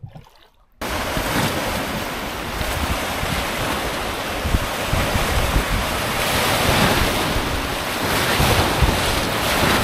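Whitewater rapids rushing around the bow of an inflatable raft: a loud, steady wash of churning water with wind noise on the microphone, cutting in suddenly about a second in.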